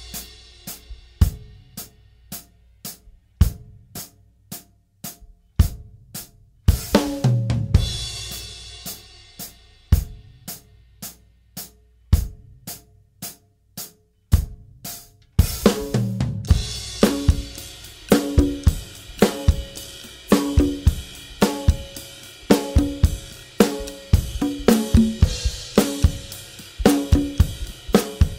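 Steelband backing track of drum kit and engine-room rhythm percussion, with no pans. For about the first fifteen seconds it plays sparse, evenly spaced strokes, with a cymbal crash and bass drum hit about seven seconds in and again around fifteen seconds. After that it settles into a fuller, busier groove with pitched drum hits and cymbals.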